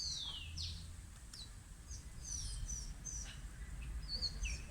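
Small birds chirping and calling, with many short high chirps and a longer falling whistle at the start, over a low steady background rumble.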